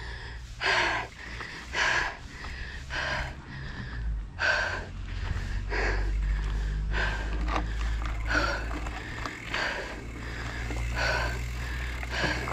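A cyclist panting hard, out of breath from the uphill climb: a heavy breath about every second and a quarter, over a low steady rumble.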